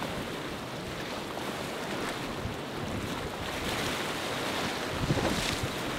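Choppy water washing and a motor yacht's bow wake splashing, a steady rush of water noise. Wind buffets the microphone in low gusts about five seconds in.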